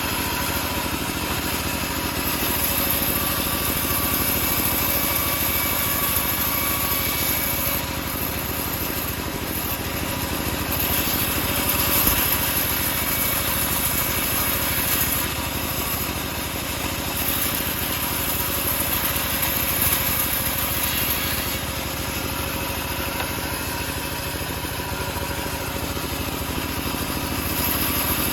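Homemade bandsaw mill running steadily as it cuts teak, its motor running with a high hiss that comes and goes.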